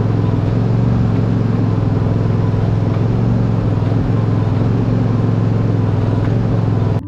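An engine running steadily at a constant speed, with an even low pulsing drone; it cuts off suddenly just before the end.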